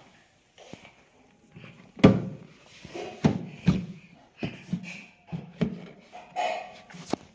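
A plastic ride-on elephant toy bumping and knocking as a toddler rocks on it: about a dozen irregular hollow thumps, starting about two seconds in.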